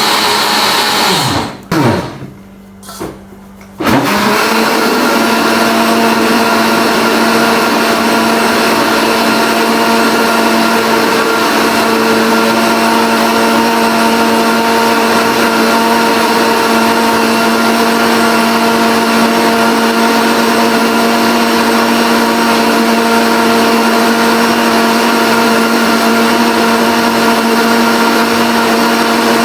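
Electric blender motor running steadily as it blends margarine for chips dough. It winds down and stops about a second and a half in, stays off for about two seconds, then starts up again and keeps running.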